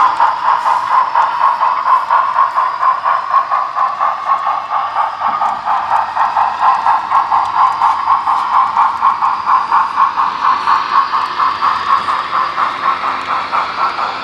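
Model steam locomotive chuffing steadily, about three chuffs a second, with a light hiss over it.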